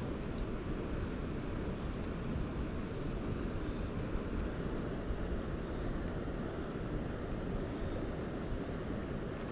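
Steady rushing of fast river current flowing around the legs of someone standing in it, heavy in the low end with no other distinct sounds.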